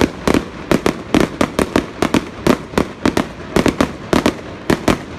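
Fireworks going off in a rapid barrage: a quick, uneven string of sharp bangs, about four a second.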